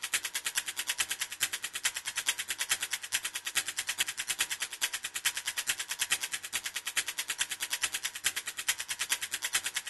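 Rapid, steady, high-pitched mechanical clicking at about nine clicks a second, even and unchanging, cutting off at the end as music begins.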